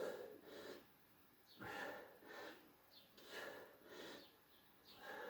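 A man breathing hard, in and out, from exertion during a set of back-extension lifts: faint, about one breath every second and a half.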